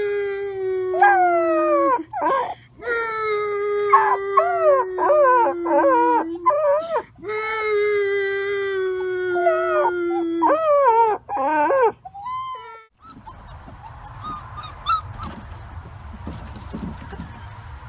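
A puppy howling: long drawn-out howls, each held on one pitch and then sliding down, broken by short bending cries, for about twelve seconds. Then it gives way to a fainter, noisy background.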